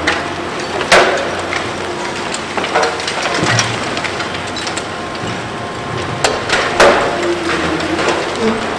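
Reinforced concrete being broken off a building by a long-reach demolition excavator and crashing onto the rubble below. Two loud cracks come about a second in and again near the seven-second mark, with smaller knocks between, over a steady hiss of falling debris and the excavator's engine hum.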